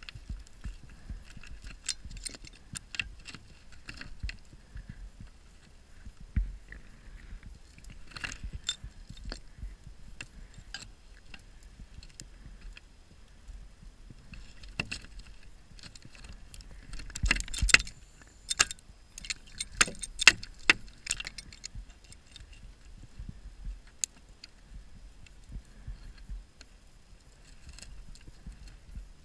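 Underwater sounds of a scuba diver inside a shipwreck: scattered sharp metallic clicks and clinks, with a denser crackling run of clicks a little past halfway, over a low rumble.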